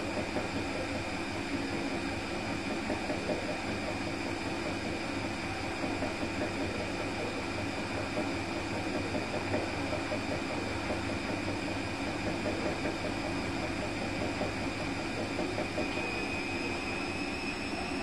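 Bosch Serie 4 front-load washing machine spinning: a steady rumble and a high motor whine, with the whine rising in pitch near the end as the drum speeds up.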